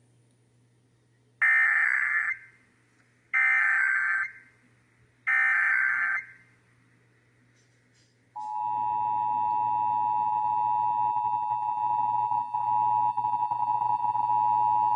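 Emergency Alert System broadcast tones: three bursts of the screeching digital SAME data code, about a second each, then the steady two-tone EAS attention signal (853 and 960 Hz), which starts about eight seconds in and holds to the end.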